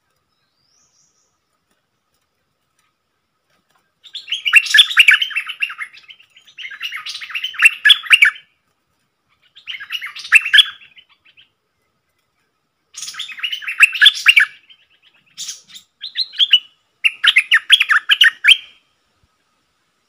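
Stripe-throated bulbul singing in six short bursts of rapid notes, starting about four seconds in, with brief pauses between the bursts.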